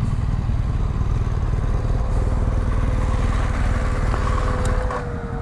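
Motorcycle engine running at low speed while the bike is ridden slowly through a turn, heard from on the bike as a steady low rumble. A thin steady whine sits over it from about two seconds in and drops slightly in pitch near the end.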